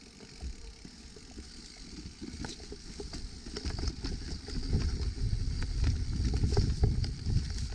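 Evil Insurgent mountain bike rolling along a trail: a low rumble with many quick rattling clicks. It grows louder about four seconds in.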